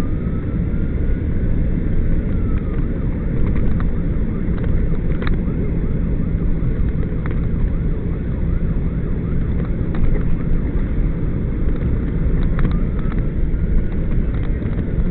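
A fire apparatus responding with its siren on over heavy engine and road rumble: the siren makes slow rising-and-falling wails at the start, switches to a fast yelp through the middle, and goes back to a wail near the end.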